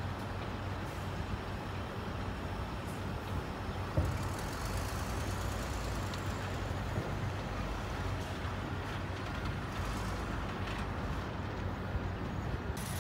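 Heavy dump truck's diesel engine running steadily, with a single sharp knock about four seconds in.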